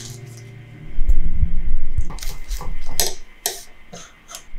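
Handling sounds on a work table among paintbrushes: a few dull thumps, then a run of sharp clicks and taps about half a second apart.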